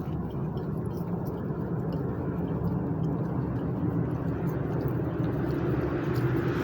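Steady roar from an unseen aircraft high in the sky, like a giant blowtorch, with a low drone that slowly grows louder.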